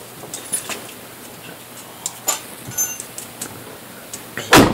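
Car keys jingling with scattered small clicks and ticks, then a single loud thump near the end.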